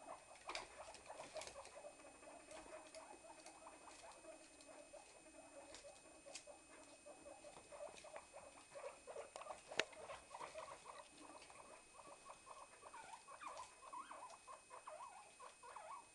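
Small pet rodents squeaking quietly: a continuous string of short, rapid squeaks, with a few sharp clicks, the loudest about ten seconds in.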